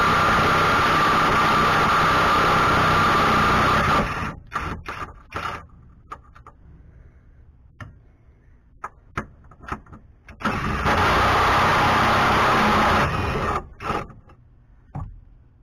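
Cordless 20V impact wrench hammering on a bolt in a minivan's frame rail, in two long runs of about four and three seconds with a few short bursts between them.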